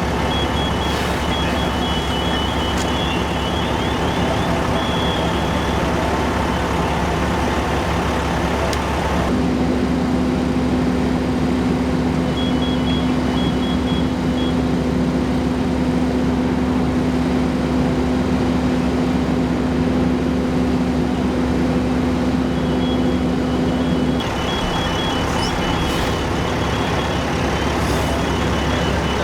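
Heavy fire-engine diesel running steadily, with a low drone that holds from about a third of the way in until near the end. Runs of rapid high electronic beeps come near the start, in the middle and near the end.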